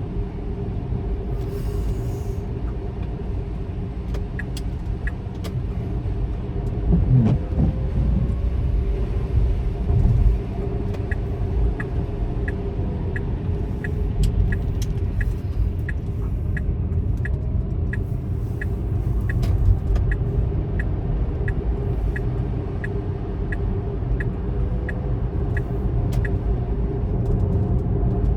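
Steady rumble of a road vehicle in motion, heard from inside, with a faint regular ticking a bit over once a second for most of the stretch and a couple of low bumps in the first third.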